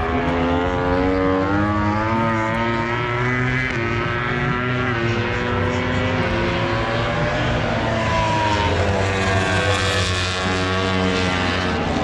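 Several racing motorcycles passing, their overlapping engine notes rising and falling in pitch.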